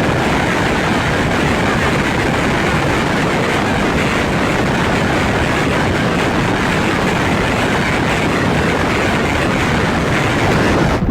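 Harsh noise from a eurorack modular synthesizer, frequency-modulated: a loud, dense, unbroken wall of distorted noise that starts abruptly and holds at a constant level.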